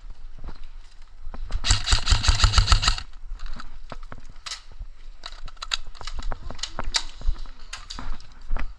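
An airsoft gun firing a rapid full-auto burst of about a second, starting near two seconds in, followed by scattered footsteps and rustling clicks.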